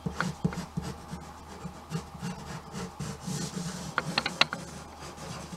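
Ink drawing pen scratching across paper in quick, loose strokes, with a few sharp clicks about four seconds in.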